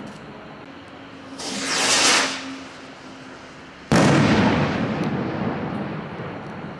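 Black Cat Viper firework rocket (Silver Palm) launching with a whoosh that swells and fades about a second and a half in. About four seconds in it bursts with a sudden loud bang, followed by a long fading rumble.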